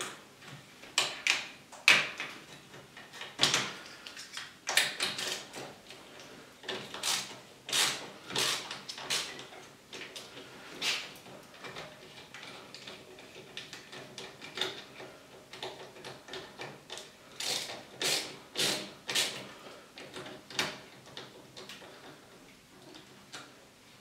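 Irregular clicks, taps and knocks as a handle is unscrewed from a refrigerator's glass door, the tool and handle rattling against the door.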